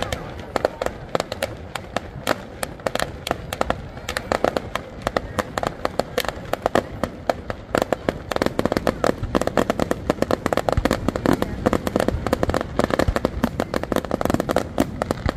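Fireworks display: a rapid, dense series of bangs and crackles from aerial shells bursting, growing denser and louder about halfway through.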